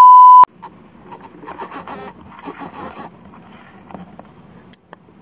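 A loud steady 1 kHz test-tone beep, the kind played over colour bars, lasting about half a second and cutting off sharply. Faint scraping and rustling with a few small clicks follows, loudest between about one and three seconds in.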